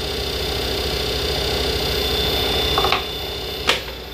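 Small lathe running, with a nickel silver rod ferrule spinning in the chuck and 400-grit sandpaper on a block rubbing against it to sand off marking dye. The sanding stops about three seconds in, and a sharp click follows shortly after.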